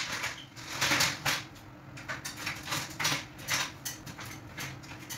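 Metal stepladder clanking and rattling as it is shifted into place and climbed: a run of short, sharp knocks and clatters, a few a second.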